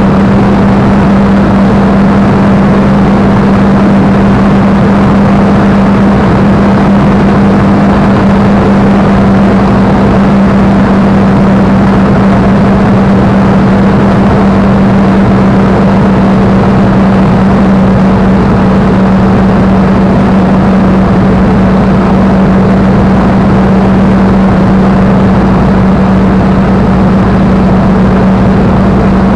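Spitfire's V12 piston engine running steadily in cruising flight, heard loud from inside the cockpit as an unchanging drone with a strong steady hum.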